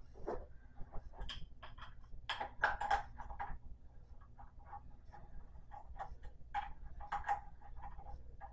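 Light, irregular metallic clicks and taps from the SvBony SV520 mount's saddle plate being set back in place and its Allen bolts being threaded in by hand. The clicks come in a few short clusters.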